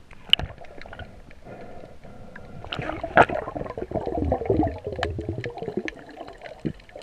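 Underwater water noise: gurgling with scattered sharp clicks, swelling into a louder gurgle from about three to six seconds in.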